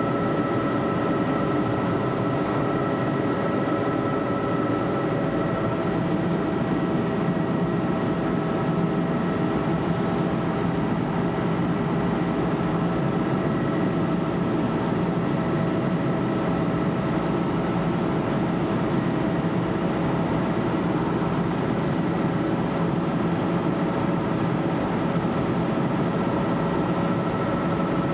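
Helicopter in flight heard from inside the cabin: a steady engine and rotor drone with several constant whining tones over it.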